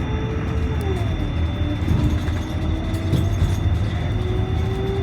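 Riding inside a moving train: a steady low rumble with a motor whine that drops in pitch about a second in, holds, then climbs back near the end.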